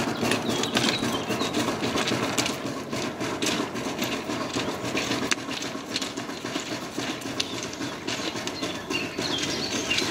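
Hand-pushed rail trolley rolling along the track, its steel wheels rattling on the rails with many sharp clicks and knocks.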